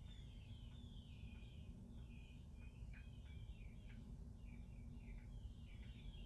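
Faint birds chirping: many short, quick downward-falling calls overlapping, over a steady low rumble.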